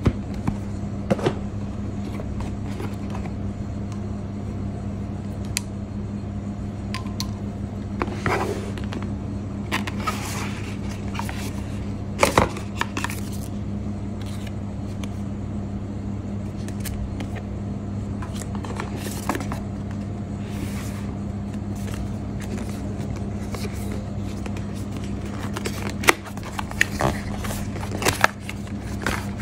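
Hands handling white cardboard packaging and paper cards: scattered scrapes, slides and sharp taps of card, loudest about twelve seconds in and again near the end, over a steady low hum.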